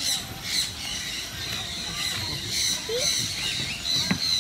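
Birds calling, short high chirps repeating about twice a second, over outdoor background noise, with a single click near the end.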